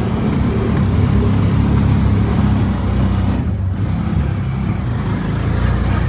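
Auto-rickshaw's small engine running steadily as it drives along, heard from inside the open passenger cabin as a loud, low drone with road noise.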